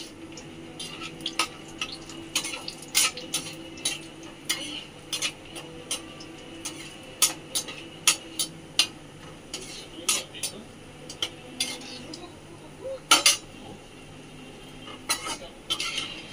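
A steel spoon clinking and scraping against a steel kadhai and a steel plate in irregular taps as fried raisins are stirred and scooped out, with a louder pair of knocks about two-thirds of the way through. A low steady hum runs underneath.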